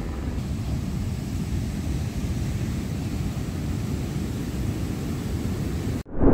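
Big ocean surf breaking and washing up a sand beach: a deep, steady rush of waves. It cuts off suddenly near the end, and a short, loud swooping tone follows.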